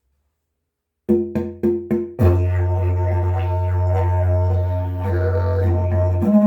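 Agave slide didgeridoo played: about a second in, a quick run of short rhythmic pulses, then a steady low drone with shifting overtones, jumping briefly to a higher note near the end.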